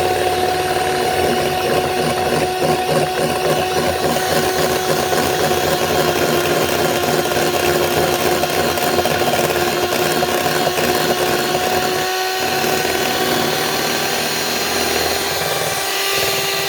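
An electric hand mixer runs steadily with a constant motor whine while its beaters whip cream in a bowl. The sound dips briefly about twelve seconds in.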